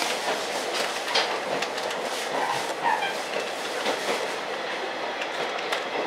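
KiHa 40 diesel railcar running along the line, heard from inside the car: a steady rumble of wheels on rail, broken by irregular sharp clicks as the wheels pass over rail joints.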